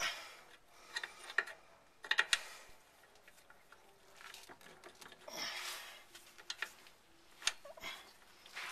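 Metal clicks and clinks as a new KYB rear strut's lower bracket is wiggled onto the hub knuckle. A few sharp clicks come about a second and two seconds in, a brief scrape comes around the middle, and two more clicks come near the end.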